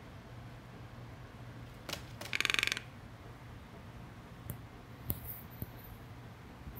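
A toco toucan's bill tapping on a painted wooden tabletop: a sharp click, then a quick rattle of taps about two and a half seconds in, and a few more single clicks later.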